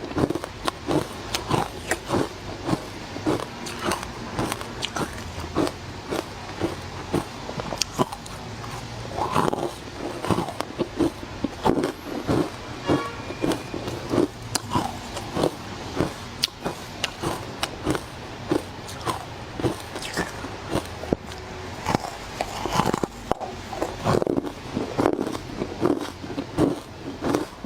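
Close-up biting and crunching of hard frozen matcha ice: a steady run of sharp, irregular crunches, several a second.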